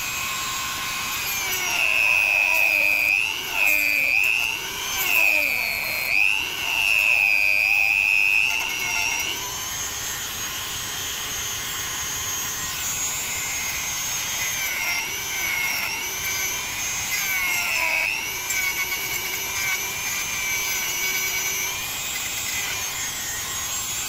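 Handheld rotary tool with a small sanding drum whining at high speed as it grinds down the plastic housing of a number plate light. The whine dips and recovers in pitch each time the drum is pressed into the plastic, loudest during the first third and again briefly near the two-thirds mark.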